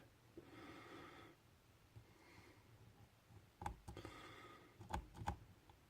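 Faint, near-silent lock picking in a Lockwood pin-tumbler lock: a few small metallic clicks of the pick and tension wrench on the pins a little past the middle, and a few more near the end, with a soft breath early on.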